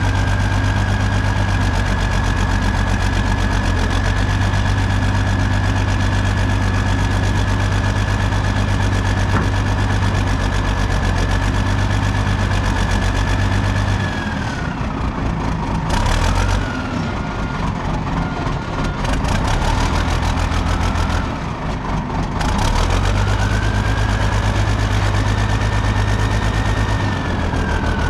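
Caterpillar 977K track loader's diesel engine running at high revs with a whine riding on it; about halfway through the revs drop to a lower idle, a sharp knock follows soon after, and a few seconds later the engine revs back up before easing off again near the end.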